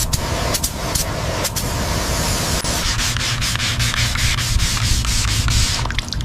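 Sanding: a quick run of rubbing strokes. A steady low hum joins about three seconds in.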